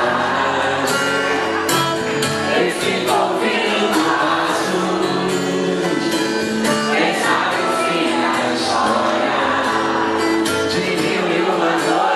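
Live rock band playing loudly with many voices singing along.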